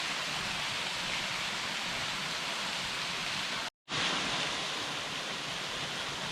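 Steady rushing of a small waterfall falling through a sandstone ravine, broken by a split-second gap of total silence a little under four seconds in.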